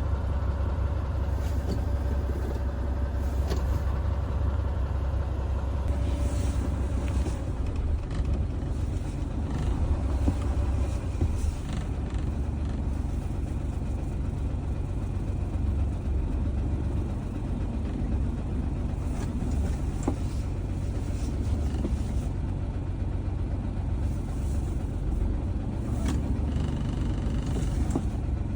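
Hino Profia heavy truck's engine running with a steady low drone. A faint steady tone rides over it for the first several seconds, then fades.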